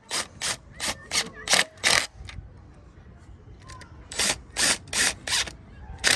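Hand ratchet tightening the cam cover bolts: a run of sharp metallic clicks, a pause, then a second run.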